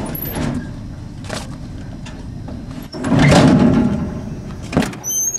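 A school hallway door is handled: sharp knocks or clunks about a second in and again near the end, and a loud rush of noise about a second long from around three seconds in. Short high chirps come just at the end.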